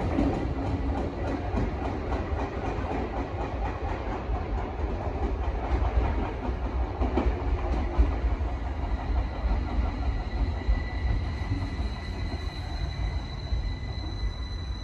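Tokyo Metro Tozai Line commuter train pulling into the station and slowing: a steady low rumble of wheels on rail with faint clicking, and a thin high whine growing over the last few seconds as it comes to a stop.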